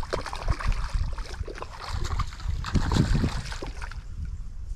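Water splashing and sloshing, with short knocks and rustles of handling close to the microphone, as a hooked trout is played in the margin.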